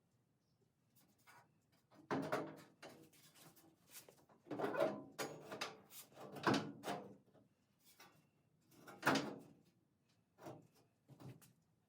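A steel inner rocker panel being handled and offered up into place on the body: a string of irregular scrapes and clunks of sheet metal against metal, the loudest about nine seconds in.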